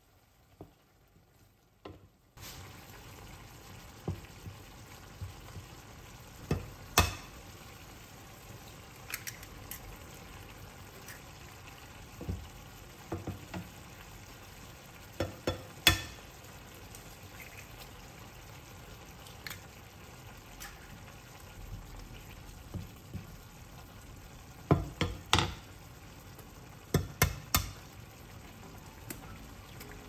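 Food sizzling in a hot frying pan, starting about two seconds in, with occasional sharp clacks of a utensil stirring against the pan.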